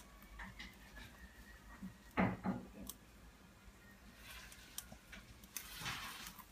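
Faint handling sounds from the split coconut and the rice cooked inside it: a short knock about two seconds in and soft scraping near the end.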